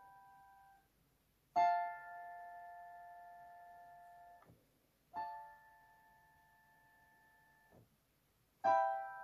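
Piano voice of a SouidMy G-310W digital keyboard playing slow block chords. A held chord dies away just under a second in. Three more chords are then struck a few seconds apart, each held about three seconds and cut off when the keys are let go.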